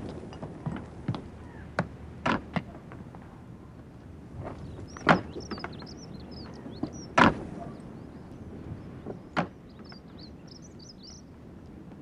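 Male Alpine ibex clashing horns in a fight: a series of sharp, irregular knocks, the loudest about five and seven seconds in.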